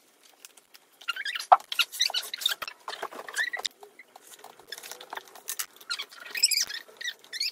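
Handling noise of small plywood kit pieces: irregular clicks, scrapes and short squeaks as the parts are picked up, rubbed and pressed together onto the lantern.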